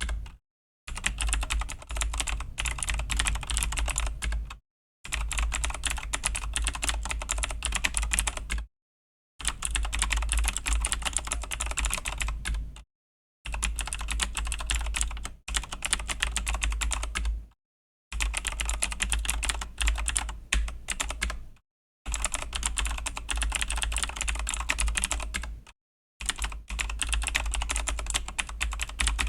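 Typing on a Razer BlackWidow V3 mechanical keyboard with clicky Razer Green switches: rapid key clicks in runs of a few seconds, broken by brief dead-silent pauses about every three to four seconds.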